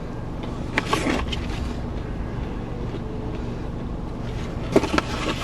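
Crunching of a bite of a Popeyes fried chicken nugget's crisp batter, in two short crackly spells about a second in and near the end, over a steady low rumble.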